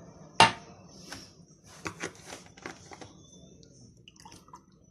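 A sharp knock about half a second in, then several lighter clicks and taps: kitchen things being handled at a glass mixing bowl.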